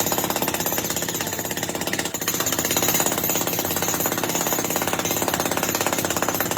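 A steady, fast mechanical hammering rattle from a percussive machine.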